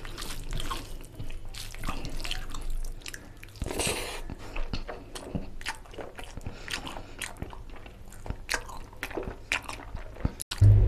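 Close-miked eating sounds of rice and chicken curry eaten by hand: fingers squishing rice into the oily gravy, then wet chewing with many small lip and mouth clicks. A loud low hum cuts in at the very end.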